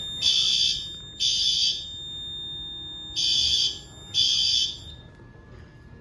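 Fire alarm horns sounding during a system test: loud, high-pitched half-second blasts about a second apart, two, a pause of about two seconds, then two more, in the on-off pattern of an evacuation signal. The horns stop a little over halfway through.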